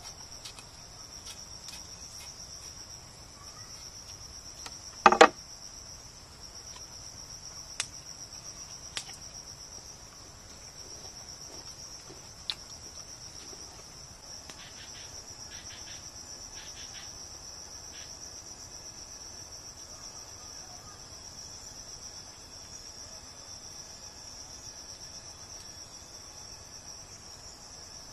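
A steady, high-pitched insect chorus drones throughout. A sharp double knock comes about five seconds in, and a few fainter clicks follow over the next several seconds.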